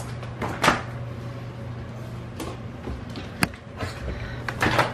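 A few short knocks and clicks from things being handled and moved in a kitchen, one sharp click about three and a half seconds in, over a steady low hum.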